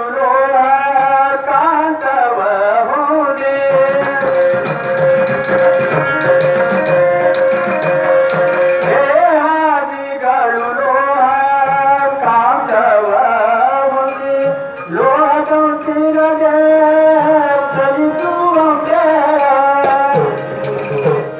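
Devotional bhajan: a man singing with harmonium and hand drum accompaniment. The melody glides between long held notes, one held for about five seconds a few seconds in.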